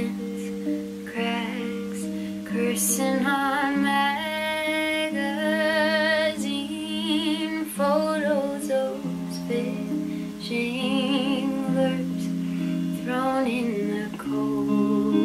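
Background music: a woman singing with vibrato over acoustic guitar.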